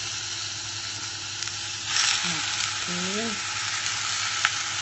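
Pork belly chunks sizzling in hot oil in a pot with sautéed lemongrass, ginger, chilli, garlic and onion, just after being added, as they are pushed around in the pot. The sizzle swells about two seconds in, with a couple of light clicks near the end.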